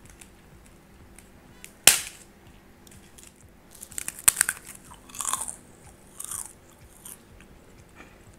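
A large white kerupuk cracker snapped with one sharp, loud crack about two seconds in, then bitten and crunched with several crisp crunches in the second half.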